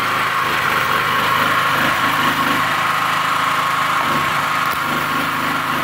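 MultiPro GGA-3900 petrol generator's 7 HP single-cylinder engine running steadily.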